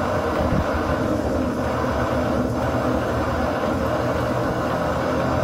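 Backpacking canister stove burner running with a steady roar under a pot of heating water.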